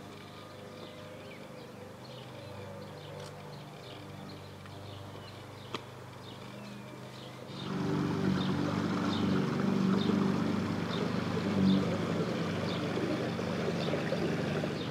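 Steady low hum of a small boat's engine, with small birds chirping. About halfway through, a louder, rougher engine sound takes over.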